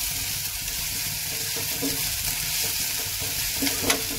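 Chopped onions sizzling in hot oil in a metal kadhai as they are stirred with a metal slotted spoon, a steady frying hiss with one sharp knock near the end.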